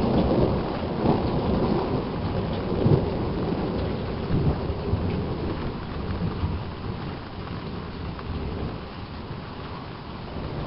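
Thunder rumbling and slowly fading away, over steady rain.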